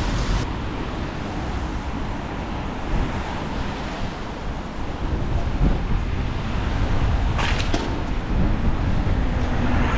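Wind buffeting the microphone and tyre rumble from a bicycle riding through city streets, a steady rushing noise. There are a couple of short clatters about seven and a half seconds in.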